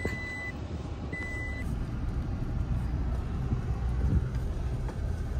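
Cab noise of a Toyota pickup driving slowly on a dirt track: steady low engine and tyre rumble. Two short, high electronic beeps sound about a second apart near the start.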